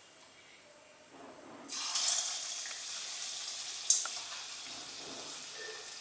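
Lauki kofta balls going into hot oil: the oil bursts into a steady sizzle about two seconds in and keeps frying, with one sharp click near the middle.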